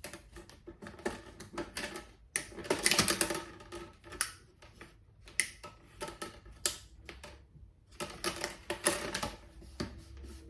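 Plastic laptop screen bezel being fitted by hand, its clips clicking and snapping into place in quick runs of small clicks and rattles, busiest about two seconds in and again near the end.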